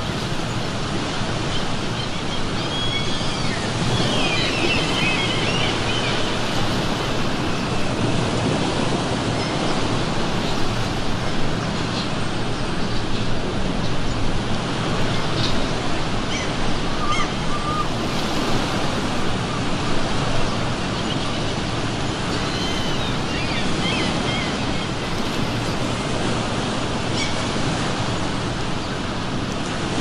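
Ocean surf washing onto the shore in a steady rush, with gulls calling over it in short clusters, about four seconds in and again about twenty-three seconds in, with a few brief calls in between.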